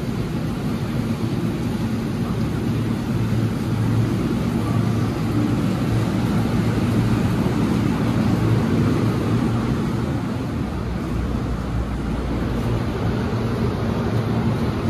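Steady low hum and rumble of a stopped electric commuter train, heard on the station platform and then inside the car.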